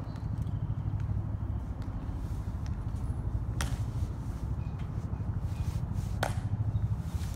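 Footsteps and two sharp heel clicks of ceremonial guards' metal-tapped dress shoes on a stone plaza, the clicks about two and a half seconds apart, over a steady low rumble.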